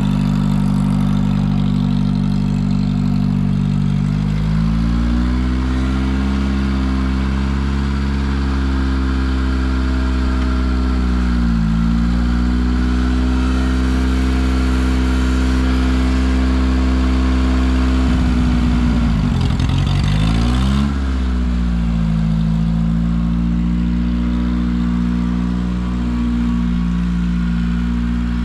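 Satoh S-550G tractor's four-cylinder gas engine running. Its speed rises about four seconds in and dips briefly near the middle. Near two-thirds of the way through, the engine speed drops sharply and then picks back up, and it settles to a steady run.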